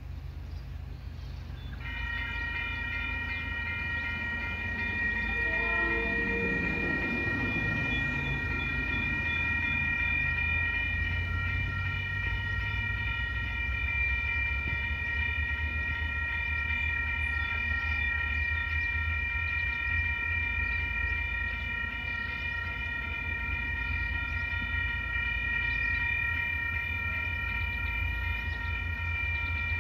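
Level crossing warning bells ringing steadily, starting about two seconds in as the crossing activates and the barrier arms come down, over a constant low rumble.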